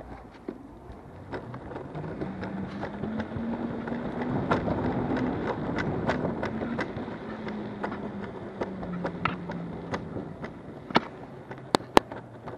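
Backfire Ranger X2 electric skateboard riding along a road: its motor whine rises in pitch as the board speeds up over the first few seconds, then falls slowly as it slows, over a steady rumble from the wheels. Sharp clicks and knocks from bumps are scattered throughout, with several loud ones near the end.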